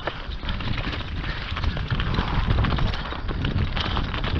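Mountain bike descending fast over loose shale and rock: tyres crunching and stones clattering, many irregular knocks and rattles from the bike taking the hits, over a steady rumble of wind buffeting the microphone.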